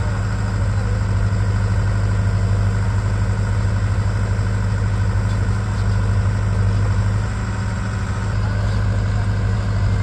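Diesel engines of a JCB 3DX backhoe loader and the tractors beside it running steadily: a continuous low engine hum with no sudden events.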